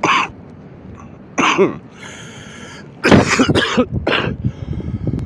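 A person coughing and clearing their throat in several short bouts: one right at the start, one at about a second and a half, and a closer run of coughs from about three seconds in.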